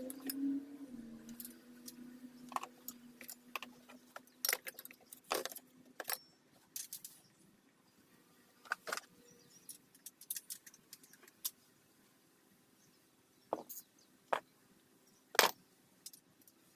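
Irregular metallic clicks and clinks, as from hand tools and bike parts being handled during reassembly, with a sharper click near the end. A faint steady hum fades out in the first few seconds.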